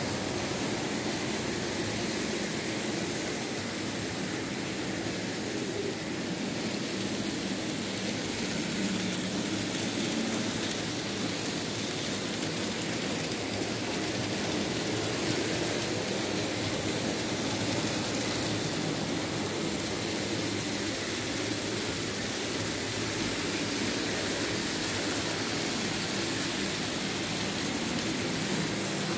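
Märklin H0 model train, a BR 23 steam locomotive model hauling wine wagons, running on the layout's track with a steady running noise.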